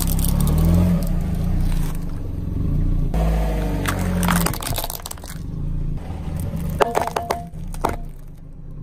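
A car tyre rolling slowly over small objects and crushing them, a white ball and then a plastic toy jet, over the low rumble of the car running. Plastic crunches and cracks come a few seconds in, and a quick cluster of sharp cracks about seven seconds in.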